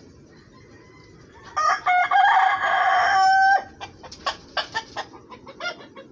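A rooster crows once, a loud call of about two seconds starting about a second and a half in. It is followed by clucking in short, quick notes from a mixed flock of Rhode Island Red, Black Australorp and Brahma chickens.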